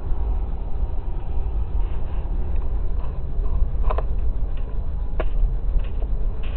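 Freight train rolling past, a steady low rumble of the cars on the rails with several short, sharp metallic noises from the wheels and cars, the strongest about four and five seconds in.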